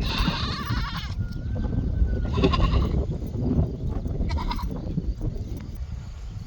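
A farm animal bleating three times, a long call first and a short one last, over a steady low rumble.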